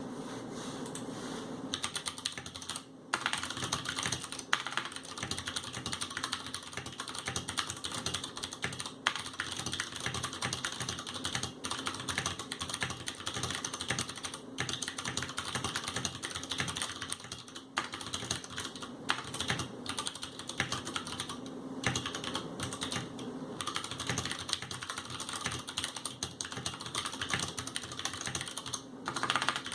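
Fast typing on a Ducky Mini mechanical keyboard with tactile Cherry MX Brown switches: a dense, continuous run of key presses and clacks, with a short pause about three seconds in.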